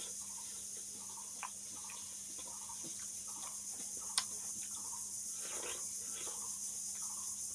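Close-up wet chewing and biting of juicy watermelon, soft mouth sounds coming at a steady chewing pace, with a sharp click about four seconds in. Crickets chirr steadily in the background.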